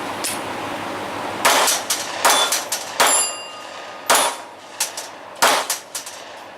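Gunshots at steel targets: about five loud shots spaced roughly a second apart, with smaller cracks between them and the clang of hit steel plates. One hit about three seconds in leaves the plate ringing on briefly.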